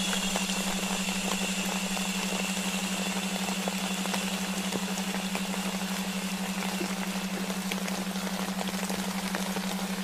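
Sleep soundscape of a steady low delta-wave tone layered over rain and white-noise hiss, with a patter of small drops. A fainter, higher hush fades out about two-thirds of the way through.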